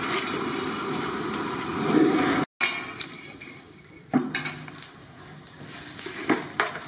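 Peanuts and dal dry-roasting on an iron tawa over a steady rushing noise, then, after a break, a few sharp metal clinks of a steel spoon and steel cup against the tawa.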